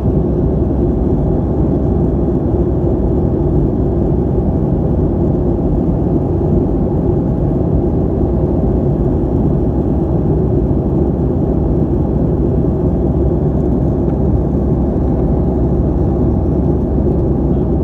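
Airplane engines and airflow making a steady, unchanging low roar, with most of the sound in the low range.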